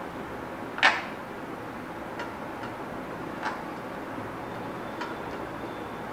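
Dough being mixed by hand in a glass bowl: scattered light clicks and knocks of glass, the sharpest about a second in, over a steady background hiss.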